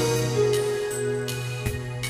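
Gentle background music: soft keyboard notes held and sustained, with a new note struck near the end.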